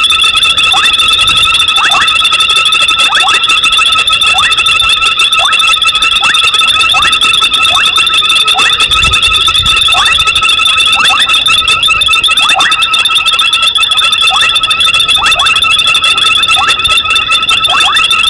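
Night chorus of calling frogs: a steady, shrill trilling at several pitches, with a short downward-sliding call repeating about once a second.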